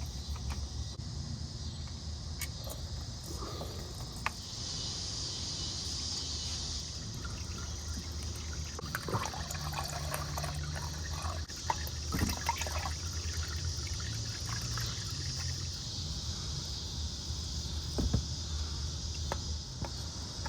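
Used engine oil draining from the opened oil pan into a catch pan in a steady trickling stream, with a few light knocks of tools or parts.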